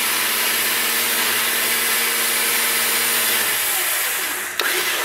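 Warn VR EVO 10-S electric winch motor running, a loud steady whine and gear noise. Its steady hum drops away about three and a half seconds in, and it stops with a click near the end.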